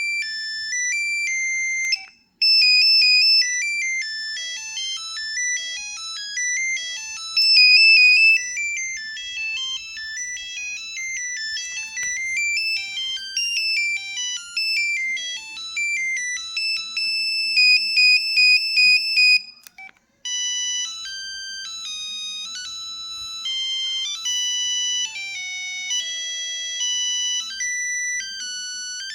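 LG Cyon mobile phone playing its built-in ringtones one after another: electronic melodies in high, thin tones, several notes sounding at once. It breaks off briefly twice, where one ringtone ends and the next begins.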